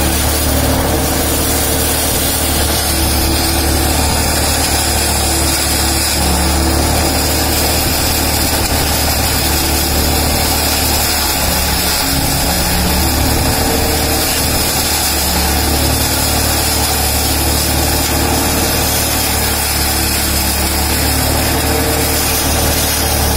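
Belt-driven chaff suction blower running steadily: an electric motor spinning the fan that pulls wheat chaff (bhusa) in through a flexible hose, a loud, continuous machine hum and rush of air.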